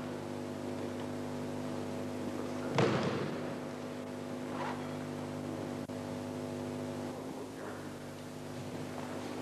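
A steady electrical hum made of many evenly spaced tones, from the old recording itself, with one sharp thud on the mat about three seconds in and fainter knocks later as the pinned partner moves on the mat.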